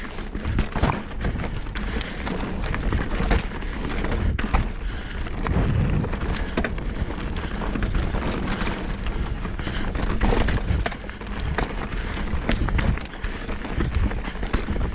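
Mountain bike descending rough singletrack at speed: tyres running on dirt and a steady clatter of knocks as the bike rattles over roots and rocks, with wind rumbling on the microphone.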